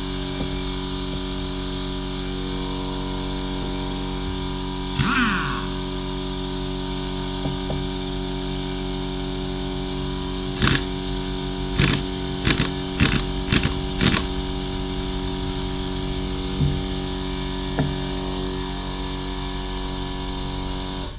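A steady mechanical hum of several even tones, with a short falling squeak about five seconds in and a quick run of sharp clicks or knocks a little past halfway.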